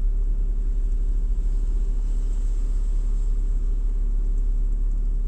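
Steady low mechanical rumble with a constant hum underneath.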